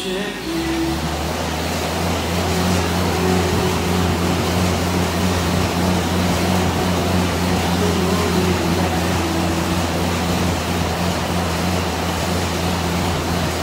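Air bike (airdyne) fan whooshing as it is pedaled hard from a standing position. The whir builds over the first couple of seconds as the fan spins up, then runs steadily.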